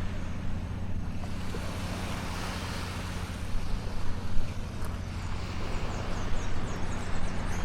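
Boat engine running at a steady drone, under a constant rush of wind and water.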